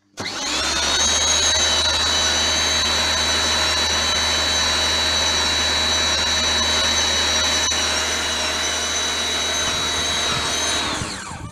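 Nilfisk C135.1 electric pressure washer running, its motor and pump giving a steady hum and high whine under a hiss of water jetting through a multi-brush's rotary conical nozzle onto an alloy wheel rim. It starts abruptly just after the beginning and cuts out shortly before the end.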